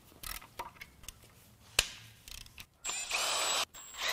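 A compact cordless power tool spinning bolts out of the front of a BMW N26 engine: a short run with a steady high whine starting about three seconds in, and another beginning near the end. Before it, a few light clicks and one sharp knock about two seconds in.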